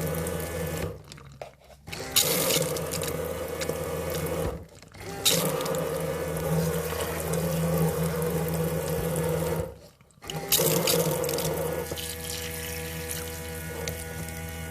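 Water running from a toy kitchen's miniature tap into its little sink, a steady motor hum under the splashing, stopping briefly three times as the tap is switched off and on.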